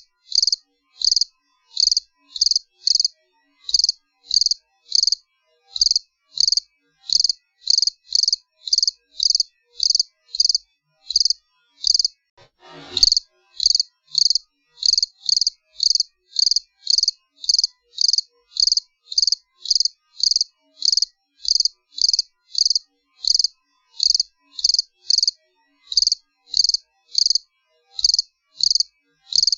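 Cricket chirping in a steady, even rhythm, high-pitched, about two chirps a second. The chirping breaks off briefly a little past the middle, and a short soft noise comes before it resumes.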